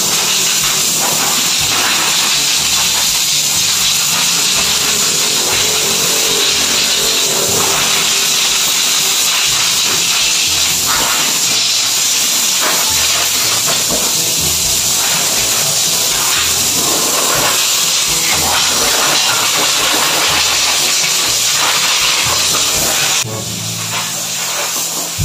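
Compressed-air blow gun hissing steadily as it blasts water out of a scooter's screws and crevices to dry them against rust; the blast cuts off suddenly near the end.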